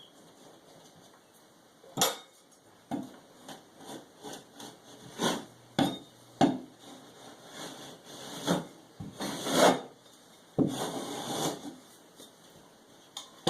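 Hand tools working on drywall: scattered knocks and taps with a few short scraping or rubbing strokes, the longest near the end.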